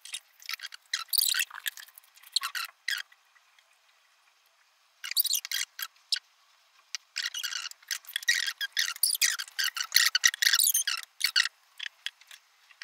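Fast-forwarded audio of aluminium foil being cut with scissors and handled: a quick run of short, squeaky, high-pitched snips and crinkles with no low end. There is a lull of about two seconds near the middle.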